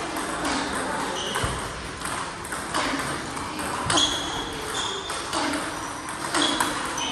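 Table tennis multiball drill: celluloid-type ping-pong balls fed one after another, clicking off the bats and bouncing on the table in a quick, irregular run of light hits with short high pings.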